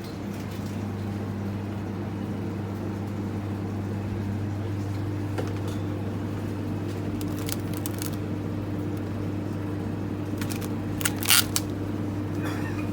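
A steady low mechanical hum, with a quick cluster of sharp clicks about eleven seconds in.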